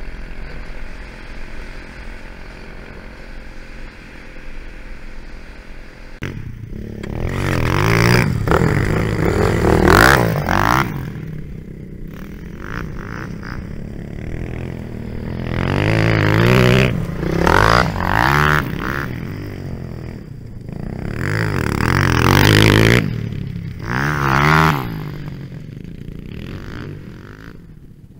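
250cc four-stroke dirt bike engine. It first runs steadily under the wind noise of a bike-mounted camera. From about six seconds in the bike passes near the camera three times, revving up and down as it accelerates and backs off, then fades away.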